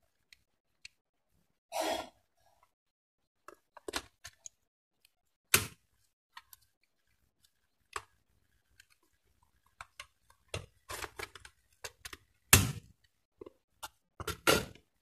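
Irregular clicks, taps and knocks of circuit boards, a metal mounting plate and cable plugs being handled and fitted together by hand, with the sharpest knock near the end.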